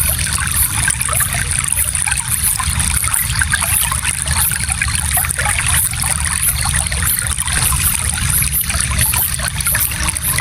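Small stream flowing steadily, a continuous burbling trickle of water over stones with many small splashes and a low rumble underneath.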